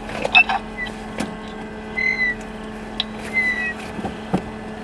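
Steady low hum inside a car, with scattered clicks and a few short, high-pitched chirps.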